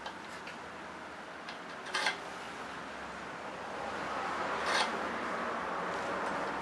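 Handling noises of work on a motorcycle's brake master cylinder: a few light knocks and clinks, about two seconds in and again near five seconds, over a steady hiss that grows a little louder partway through.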